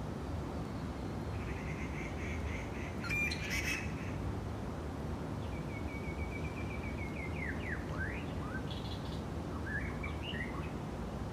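Small bird singing: a couple of short trills near 2 to 2.5 kHz, the second running on for about a second and a half and ending in quick downward swoops, then a few brief chirps near the end. A steady low rumble of background noise runs underneath, with a brief sharp rustle or click about three seconds in.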